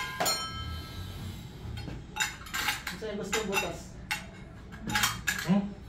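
Hard objects clinking and clattering in irregular knocks, with one sharp ringing clink right at the start.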